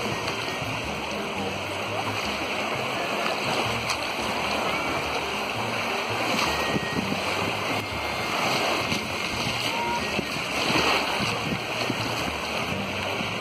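Small waves washing onto a sandy beach in shallow water, a steady rush of surf with indistinct voices of people in the background.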